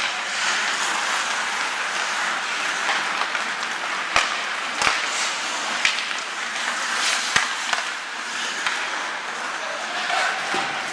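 Ice hockey skates scraping and carving on the rink ice in a steady hiss, with several sharp clacks of sticks on the puck through the middle.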